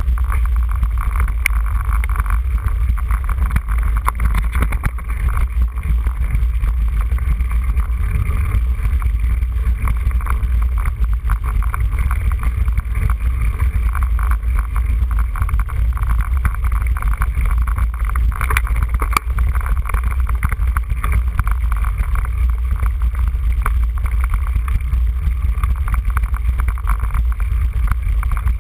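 Steady wind rumble on the microphone of a camera riding on a mountain bike, with constant rattling from the bike and its tyres over a rough dirt track.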